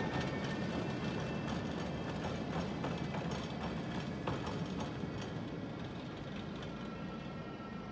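Tram running along the track: a steady rolling rumble with irregular clicks and clacks from the wheels on the rails, and a faint thin whine, with a second whine coming in near the end. The sound fades slightly toward the end.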